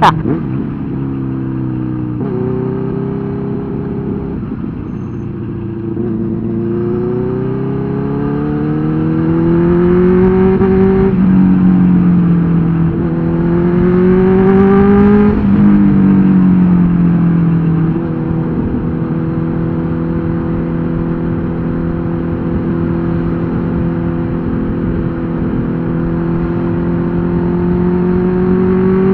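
Benelli TNT 600's 600 cc inline-four engine under way. Its note climbs twice with the throttle and drops back each time, then holds steady while cruising.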